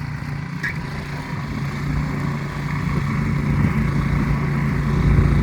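Snowplow truck's engine running with a steady low hum, growing gradually louder.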